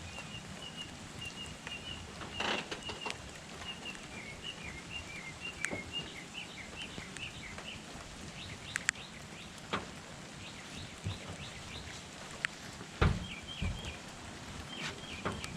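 Outdoor background with runs of short, high repeated chirps, and a few scattered knocks. Two dull thumps come near the end and are the loudest sounds.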